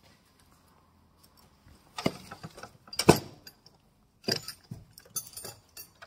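Sharp metallic clicks and clinks of hands handling the hose and cable fittings on a fiber laser cutting head. Quiet for the first two seconds, then a run of separate clicks, the loudest about three seconds in.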